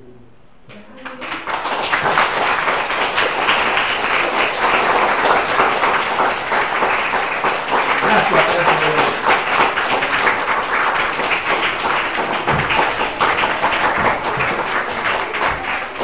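Audience applauding, breaking out about a second in and going on steadily.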